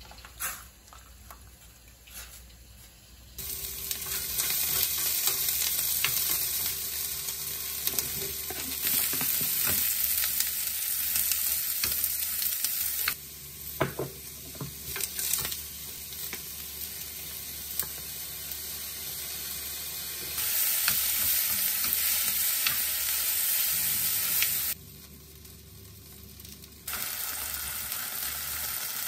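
Food sizzling in hot oil as sausages and vegetables are stir-fried in a frying pan, with a wooden spoon stirring, scraping and tapping the pan; near the end, chopped green onion sizzling in oil in a wok. The sizzle starts a few seconds in, after a quieter stretch with a few light knocks, and cuts down and back up several times.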